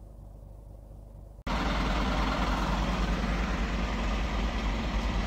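A faint low hum, then about a second and a half in a sudden cut to a heavy diesel engine idling loudly close by, a steady rough rumble.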